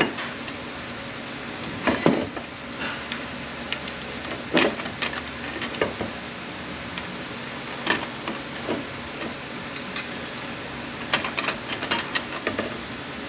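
Steel clutch plates and friction discs from an A650E transmission's forward clutch pack clinking and clattering as they are handled and counted, with a steady low hum behind. The clinks cluster about two seconds in, around four and a half seconds, and again between eleven and twelve and a half seconds.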